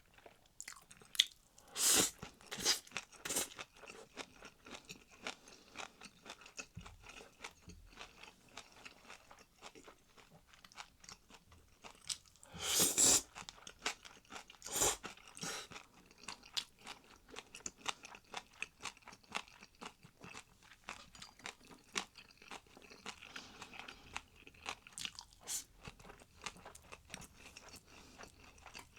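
A person chewing and crunching food close to the microphone, in a steady run of small irregular crunches, with a few louder crunches a few seconds in and again around the middle.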